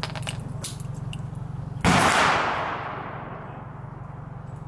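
A single gunshot from another shooter on the range about two seconds in, a sharp crack whose echo dies away over about a second and a half. Before it come a few light metallic clicks as spent cases are pushed out of a small revolver cylinder.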